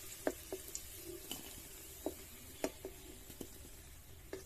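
Hot oil sizzling faintly in an aluminium kadai as fried potatoes are lifted out with a wooden spatula. The spatula knocks lightly against the pan about seven times, each knock leaving a short metallic ring.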